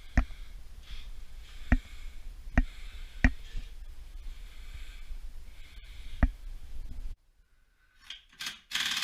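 Five sharp knocks at uneven intervals over a steady low hum. Then the sound cuts out abruptly to near silence, with a brief hiss near the end.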